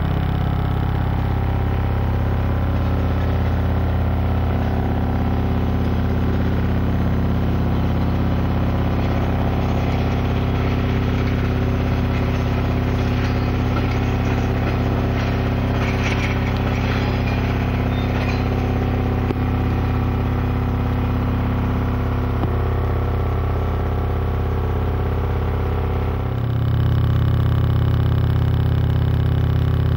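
Loud steady electrical hum from the camcorder, picked up from the high voltage of the overhead line, with a road-rail work vehicle's engine running beneath it. The hum grows louder near the end.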